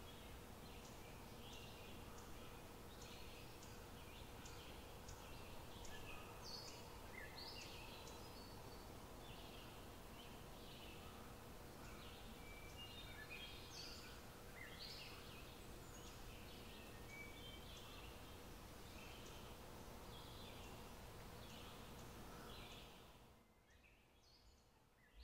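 Near silence: a faint steady hiss with scattered short, high chirps, fading out about two seconds before the end.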